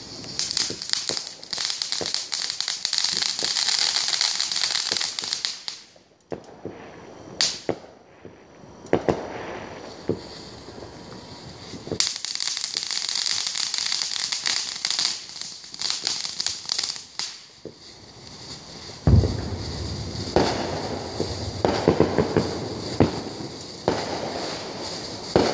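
Aerial fireworks going off. There are two long stretches of dense, high-pitched crackling, with a single sharp crack between them. About nineteen seconds in comes a loud bang, followed by a run of rapid popping.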